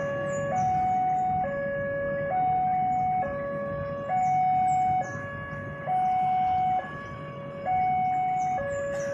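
Railway level-crossing warning alarm sounding an electronic two-tone hi-lo signal, each tone held just under a second, over a low rumble of waiting traffic.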